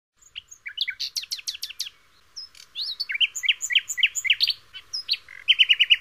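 Songbirds chirping: quick high notes sweeping in pitch, a short pause about two seconds in, then more varied calls and a fast, even run of chirps near the end.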